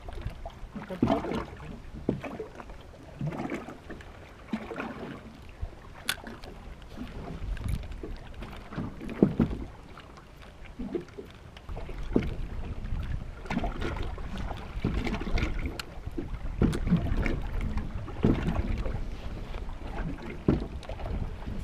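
Water lapping and knocking against a small boat's hull, with scattered knocks. Wind rumbles on the microphone and grows louder about halfway through.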